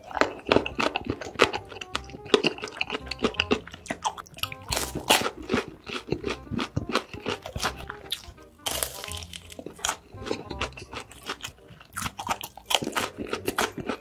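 Close-miked chewing of a mouthful of crispy sauced fried chicken: a dense, irregular run of crisp crunches and wet mouth sounds, over soft background music.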